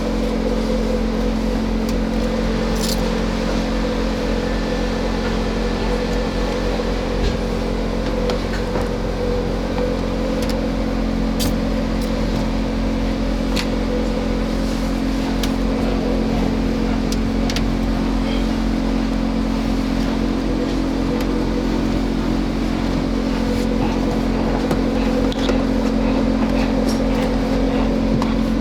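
A steady mechanical drone: a constant low hum with a mid-pitched tone over it, unchanging in level, with a few faint clicks.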